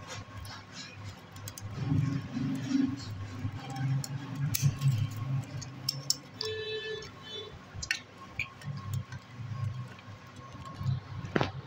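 Old copper winding wire being pulled by hand out of an electric motor's stator, with scattered clicks and scraping of wire and a low rumble underneath. There is one sharp snip near the end as cutting snips are brought to the windings.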